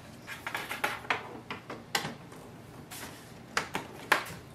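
Light plastic clicks and knocks as hands handle the lid, document feeder and housing of a Canon Pixma TR8620 inkjet printer and bring its power cord to the back; a string of separate taps, the sharpest a little after four seconds in.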